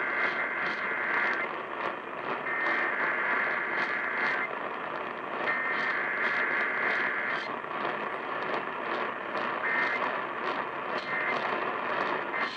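Emergency Alert System (SAME) digital data bursts: three long warbling tone bursts of the alert header about a second apart, then shorter end-of-message bursts near the end. They play over steady radio hiss and crackle.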